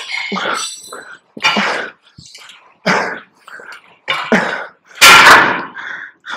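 A man grunting and exhaling hard with each pull through the last straining reps of a heavy set, about one burst every second or so, with a louder, longer burst about five seconds in as the set ends.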